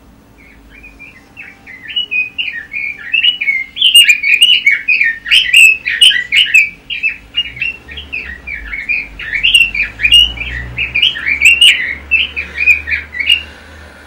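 Red-billed leiothrix (Pekin robin) singing a long, fast run of warbling, chattering notes. The song starts about half a second in, is loudest through the middle, and stops just before the end.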